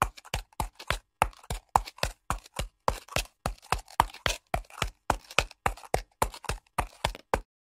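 Horse hooves walking, as a sound effect: a steady clip-clop of about four hoof strikes a second, stopping near the end.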